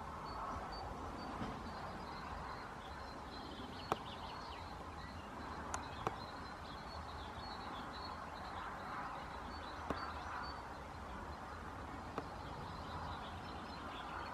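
House sparrows chirping faintly over a steady background hiss, with a few sharp clicks.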